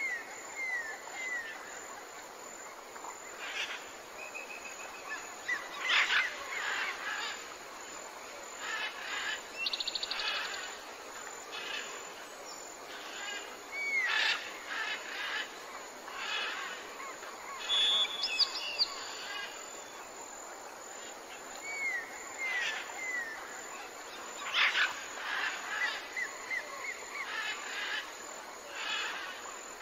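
Nature ambience of birds calling: short falling whistled notes in quick groups of three or four, brief trills and scattered sharp chirps, recurring every few seconds over a faint hiss.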